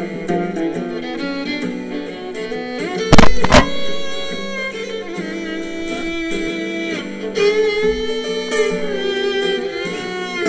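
Country song with fiddle and guitar playing; about three seconds in, two shotgun shots about half a second apart sound loud over the music.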